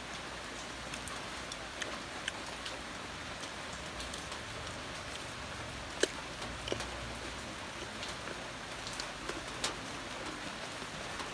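Sour fruit being eaten: scattered small clicks of biting and chewing, with one sharper crunch about six seconds in, over a steady hiss.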